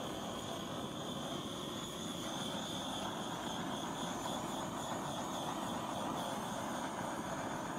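Handheld butane torch burning with a steady hiss, its flame passed over wet acrylic paint to bring cells up to the surface.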